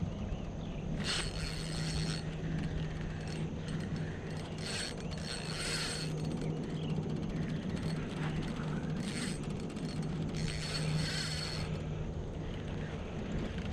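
Fishing reel whirring and clicking in about five bursts of half a second to a second each, as a hooked fish is fought on the rod. A steady low hum runs underneath.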